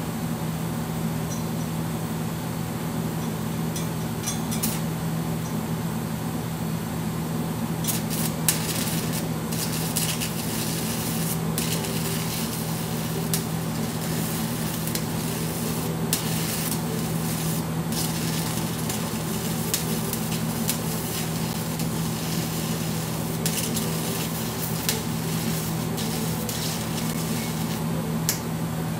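Stick (arc) welder crackling and sizzling as a copper-alloy electrode at about 50 amps builds up a worn, egg-shaped hole in a brass bearing. The arc starts about eight seconds in and runs, with short breaks, until near the end, over a steady low hum.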